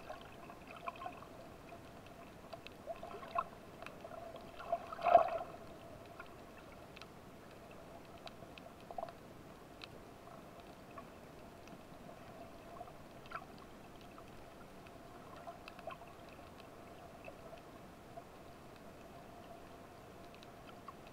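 Underwater ambience picked up by an action camera in its waterproof housing over a coral reef: a faint steady hum with scattered small clicks, and one louder short burst of noise about five seconds in.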